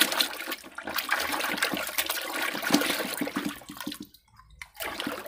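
Soapy water sloshing and splashing in a washing basin as a hand scrubs and dips a small toy bus. The splashing dies down about four seconds in, with one more short splash near the end.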